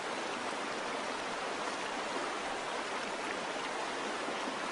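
A steady, even rushing noise with no pitch or rhythm, unchanging throughout.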